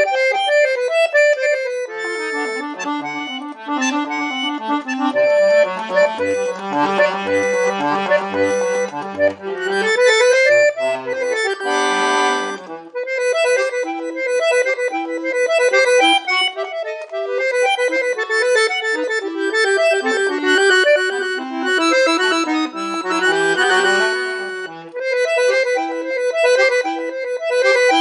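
Solo accordion playing a fast piece: quick runs of high melody notes over low bass notes, with one loud sustained full chord about twelve seconds in.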